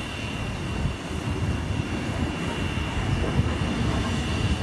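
Steam locomotive standing on a turning turntable, giving a steady rumble and hiss, with a thin high steady whine throughout.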